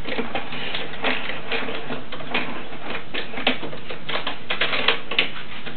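Irregular light clicks and taps, sometimes several a second, from hands handling the glued wooden window frame and its plastic corner clamps, over a steady background hiss.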